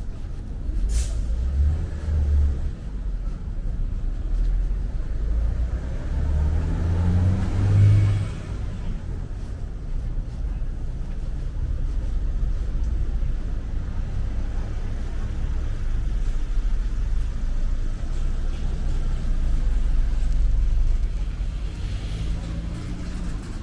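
Street traffic: motor vehicles passing close with engines rumbling. One pass builds and rises in pitch to its loudest about eight seconds in, and a brief sharp hiss comes about a second in.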